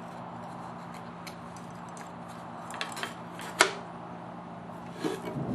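A few light metallic clicks and taps as a scroll saw blade is threaded through a drilled starter hole in the wood and handled at the saw, with a louder knock near the end, over a faint steady hum.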